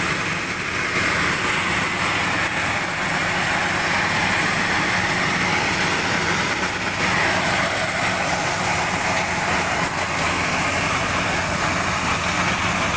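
A tractor-driven maize sheller running steadily: the drone of the tractor engine and the threshing machine, with the rush of shelled corn kernels pouring from its delivery pipe onto the heap.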